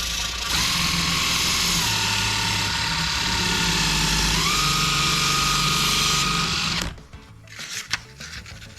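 A small electric motor tool runs steadily for about six seconds, its whine dropping slightly and then stepping up higher about halfway through before it stops.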